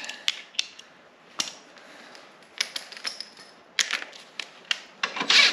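Irregular small metal clicks and taps as a 7/16-inch bolt is started into its threads on a mower's drive housing and not yet tightened, with a louder rattle near the end.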